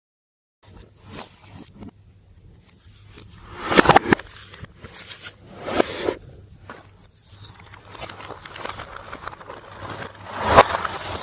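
Slime being squished and worked by hand: irregular sticky crackling and squelching that starts after a brief silence, with louder squishes about four seconds in, around six seconds and near the end.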